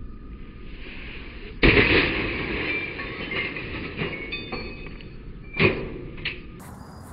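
Sledgehammer smashing into an already-broken CRT television: a heavy crash about a second and a half in, followed by a few seconds of glass and plastic shards clattering and tinkling, then a second crash about four seconds later and a smaller knock just after.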